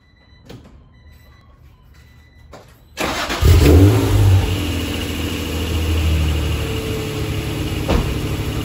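1991 Acura NSX's 3.0-litre V6 cold-starting through a full-titanium RFY GT exhaust. After a few seconds of faint clicks and a thin steady tone, the engine catches about three seconds in, flares up briefly, then settles into a steady idle.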